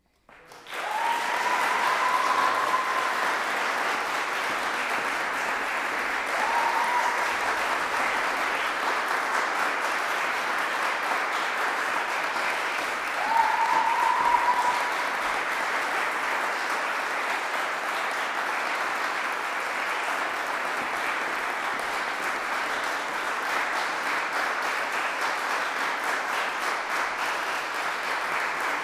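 Audience applauding, breaking out suddenly from silence about half a second in and holding steady. Three short high tones ring out over the clapping.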